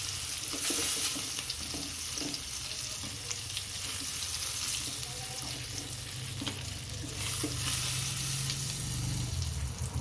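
Giant river prawns sizzling in hot oil in a kadai, a steady frying hiss, with scattered clicks and scrapes of a spatula against the pan as the fried prawns are lifted out.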